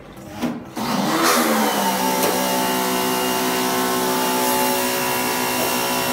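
A motor running: a loud, steady whirring hum that starts about a second in and settles quickly to one steady pitch.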